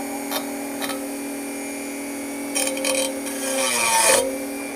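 A power cutting tool's motor running at a steady whine while cutting thick sheet steel, with short louder rasping bursts as it bites into the metal. Its pitch sags under load about four seconds in, then recovers.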